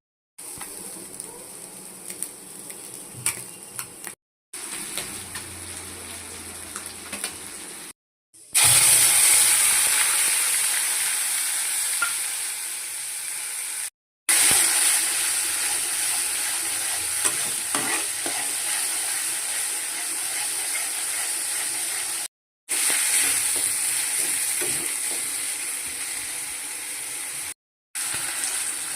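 Fish frying in hot oil in a pan, a steady sizzle, quieter with scattered utensil clicks at first and much louder from about a third of the way in. It breaks off abruptly several times, and after each break it starts loud and slowly fades.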